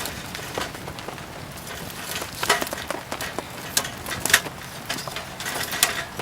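Wood fire crackling with irregular sharp pops, over a steady hiss of rain. The loudest pops come about two and a half and four and a half seconds in.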